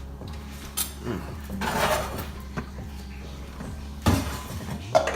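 Kitchen cookware clatter: pots, dishes and utensils knocking and scraping, with a sharp clank about four seconds in and another near the end.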